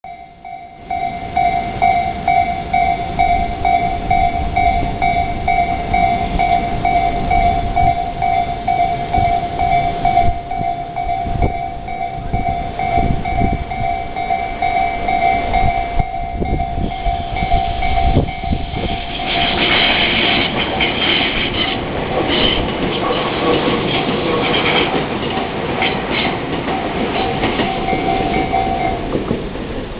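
Japanese railway level crossing warning bell ringing in a steady, rapid pulse while a train runs over the crossing with a low rumble and clattering wheels. From about two-thirds of the way through, the clatter gets denser and higher, and the bell stops just before the end.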